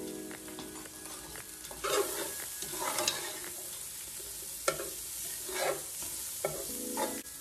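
A spoon stirring food in a sizzling pot, with several scraping strokes against the pot over a steady sizzle.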